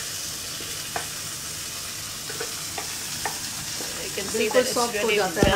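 Boiled dried white peas sizzling in a pan of spiced oil as they are stirred, with a few sharp taps of the spoon against the pan. A voice and louder knocks come in near the end.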